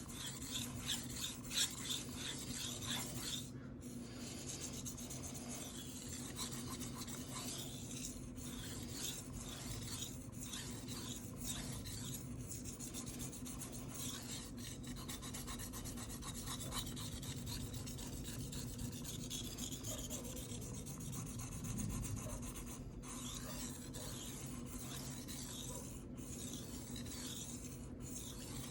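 A kitchen knife blade is stroked back and forth on a wet Shapton Rockstar 1000 whetstone, a repeated scraping rasp. This is the second side of the edge being worked to raise a burr.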